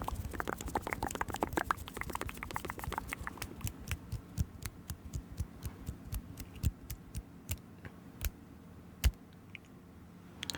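Close-miked ASMR clicking and tapping: quick, irregular clicks, dense at first and thinning out, with one sharper, louder click about nine seconds in.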